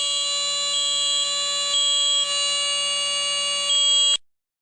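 Two First Alert smoke alarms going off together in response to smoke. The old SA76RS ionization alarm sounds a continuous, very loud horn, while the new SA320 dual-sensor alarm beeps over it: three beeps a second apart, a pause, then another. Both cut off abruptly about four seconds in.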